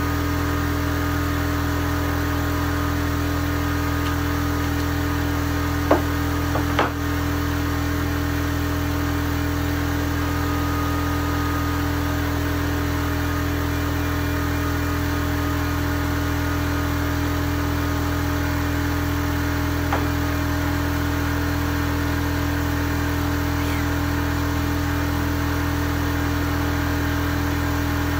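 Steady, even hum of a running electric motor, with a couple of light knocks about six and seven seconds in and another around twenty seconds.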